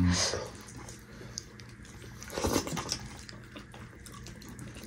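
Wet eating sounds from a person eating soft dhido and nettle soup by hand: mouthfuls taken, chewed and smacked, with a louder wet burst at the start and another about two and a half seconds in.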